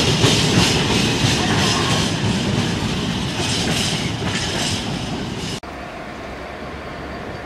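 Container flat wagons of a freight train rolling past, their wheels making a rhythmic clatter. The sound cuts off abruptly about five and a half seconds in, giving way to a quieter steady background.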